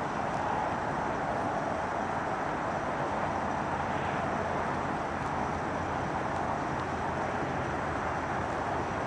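Steady car noise, engine and road running evenly with no change in level.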